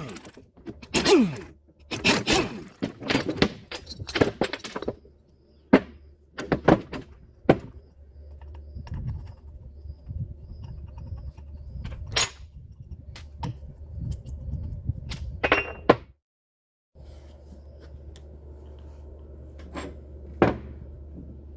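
Irregular metallic knocks and clanks of hand tools and parts being handled on a truck starter motor, thickest in the first few seconds, over a steady low hum. The sound cuts out for about a second near the middle.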